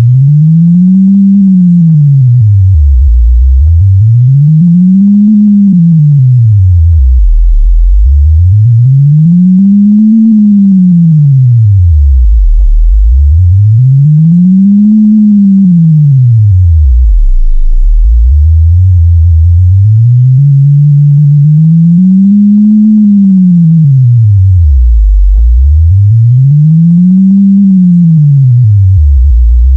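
Synthetic sine tone sonifying a deafblind person's movement through space using haptic touch technology. A loud, low, pure tone glides up to a peak and back down again about every four to five seconds. Partway through, it moves up in a few brief steps before sweeping on.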